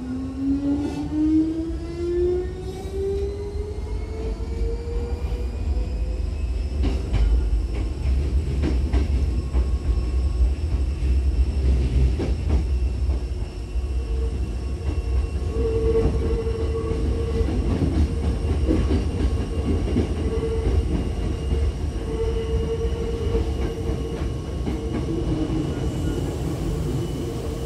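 Inside a Hankyu 6000-series electric train (set 6015F) pulling away: the traction motor whine rises in pitch over the first six seconds as it accelerates. It then settles into a steadier tone over a low running rumble, with wheel knocks over rail joints and points.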